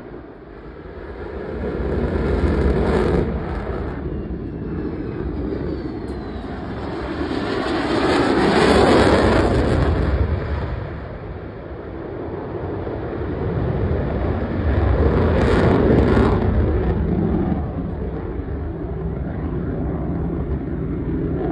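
Fighter jet flying past overhead, its jet engine noise swelling and fading three times, loudest about three, nine and sixteen seconds in.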